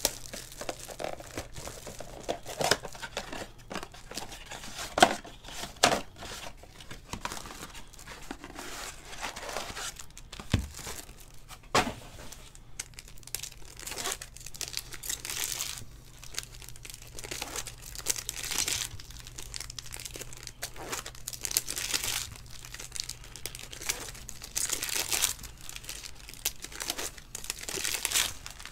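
Topps Chrome Sapphire foil card-pack wrappers being torn open and crinkled by hand, with scattered sharp clicks and taps as the cards are handled and set down on the table.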